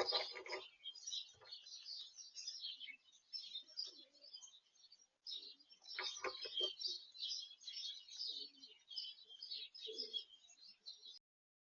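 Small garden birds chirping and twittering in a dense, busy chatter, with a few lower, rougher sounds mixed in; it cuts off abruptly near the end.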